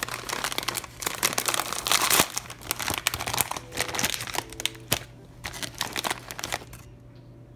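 Plastic snack-chip bag crinkling loudly as it is handled and pulled open, a dense crackle that stops about a second before the end.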